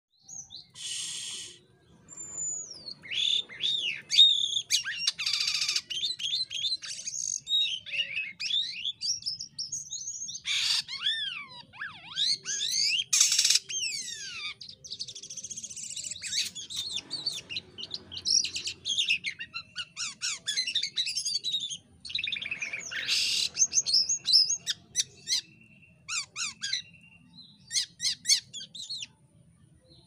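A caged jalak kapas starling singing a long, varied song of rapid chirps and whistles that sweep up and down, broken by several short harsh rasping bursts and brief pauses.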